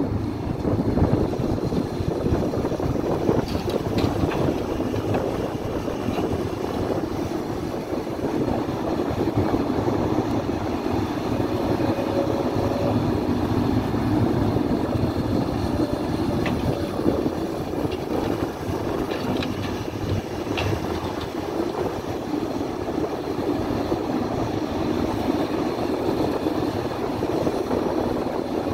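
A 33-tonne Hidromek HMK 310 crawler excavator's diesel engine running steadily under working load while its hydraulics move the boom and bucket in the dirt. A few faint clicks and short whines are heard over it.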